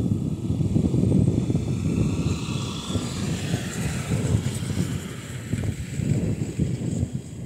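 An aircraft's engines passing, with a high whine that swells and rises in pitch through the middle, over gusty wind rumbling on the microphone.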